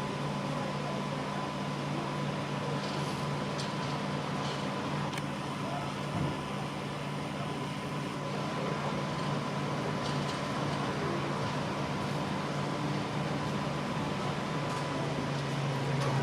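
Commercial laundry machines running with a steady low hum and a thin constant whine above it.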